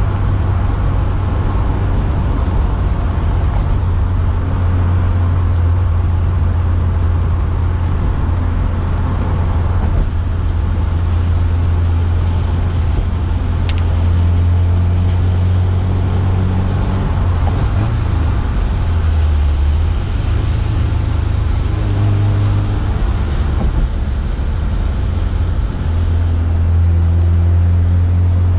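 1979 Alfa Romeo Alfetta's four-cylinder engine heard from inside the cabin on the move, a steady low drone. In the second half its pitch shifts up and down several times as the revs change.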